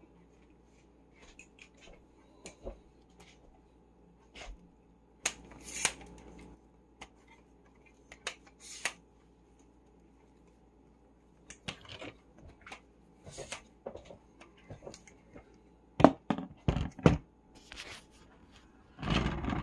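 Scattered small clicks and rustles of hands handling things, then several loud knocks and a heavy bump near the end as the camera tripod is picked up and moved.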